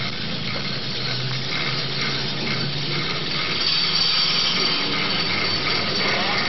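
Chairlift drive machinery running during a full-speed rollback brake test: a steady rushing noise with a low hum, joined about halfway through by a thin high tone.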